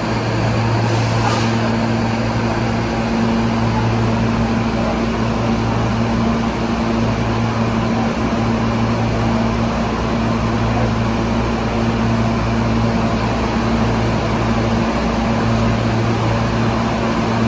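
Parked subway car with its doors open, its air-conditioning and auxiliary equipment running: a steady low hum with a second, higher hum tone over an even rushing noise.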